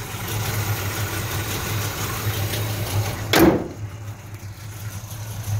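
Chevrolet V8 with headers idling steadily. A little past halfway the hood is slammed shut with one loud bang, and the idle is more muffled after it.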